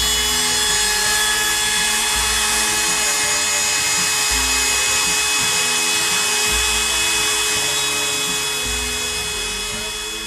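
Makita compact trim router running steadily with a high whine as its bit cuts a slot into plywood, the slot for the head of a movable fence's adjusting screw.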